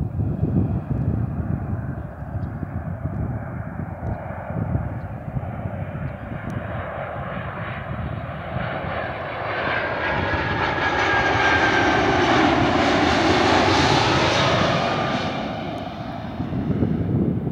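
Boeing 767-300F freighter's twin jet engines on landing approach, growing louder as the plane passes close by, loudest about two-thirds of the way through, then fading. A high engine whine sinks slightly in pitch as it goes past. Wind rumbles on the microphone at the start and near the end.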